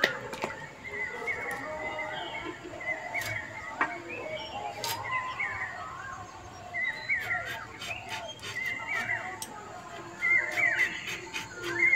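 Several birds calling and chattering, a busy run of short rising-and-falling chirps, with a few sharp clicks in between.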